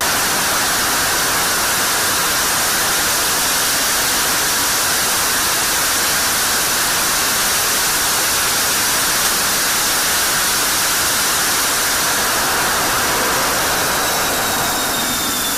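F-16 jet engine on a hush-house test stand running at full afterburner: a loud, steady rushing roar. A faint falling whine shows near the end.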